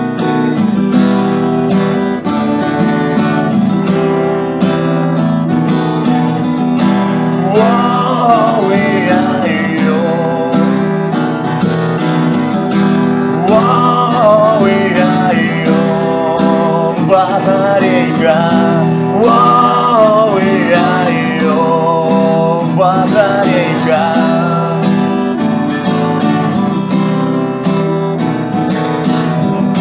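Baton Rouge acoustic guitar strummed steadily in chords, with a man singing over it in short phrases from about eight seconds in until about twenty-five seconds in; the guitar carries on alone near the end.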